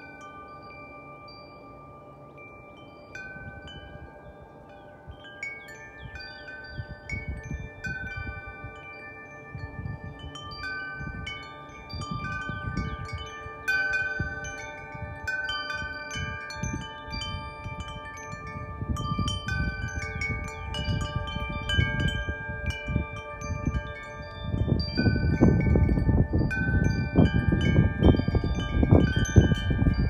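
Large wind chime of long metal tubes ringing in the wind, several notes struck again and again and overlapping as they ring on. Gusts of wind rumble on the microphone, growing stronger over the last few seconds.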